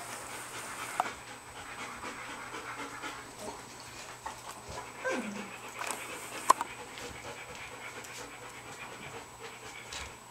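Two-week-old Old German Shepherd puppies stirring awake, with soft breathing noise, one short whine that falls in pitch about five seconds in, and a sharp knock a second or so later.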